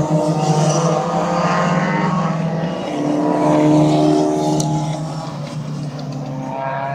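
Racing car engines on the circuit, with one car's engine note rising to its loudest about four seconds in as it passes, then easing off.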